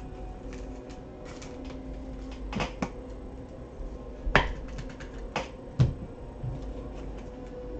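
A handful of sharp clicks and snaps from handling a retail trading-card box and its card packs, the loudest about four and a half seconds in, over a faint steady hum.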